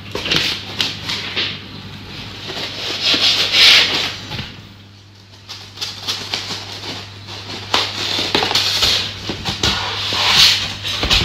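Cardboard packaging scraping and rustling as a floor lamp is unpacked by hand from its box, coming in irregular swells with a brief lull near the middle.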